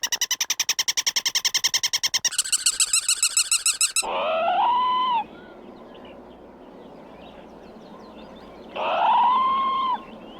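Squirrel calls: a fast chattering run of clicks, about ten a second, for the first four seconds, then two drawn-out calls that rise and fall in pitch, a few seconds apart.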